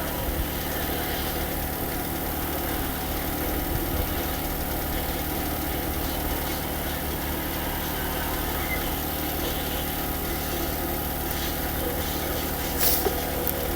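A steady low mechanical drone like an idling engine, with a short sharp click near the end.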